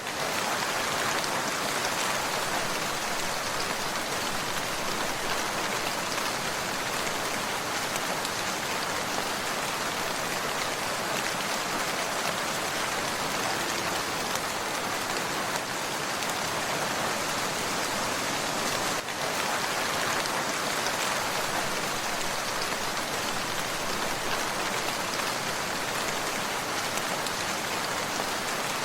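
Steady rain falling, an even dense hiss of drops with no change in intensity, broken only by a brief dip about two-thirds of the way through.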